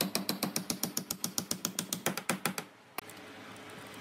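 Claw hammer tapping a steel bolt through a pre-drilled hole in a laminated wooden chair frame: quick, even light taps, about eight a second. They stop a little past halfway, with one last tap about a second later.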